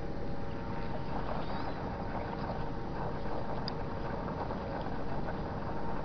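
Ground vibration from a seismometer, sped up 120 times into audible sound: a dense, steady rumble of background ground noise with held hum tones, which come from the vibration of the giant Bohernabreena Waterworks water pumps. Faint short swishes rise above the rumble now and then.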